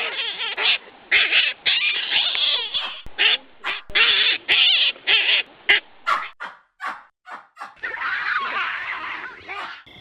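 Baboons calling: a run of short harsh calls, each under half a second, then a quick string of very short, sharp calls about six seconds in, and several overlapping calls in a dense chatter near the end.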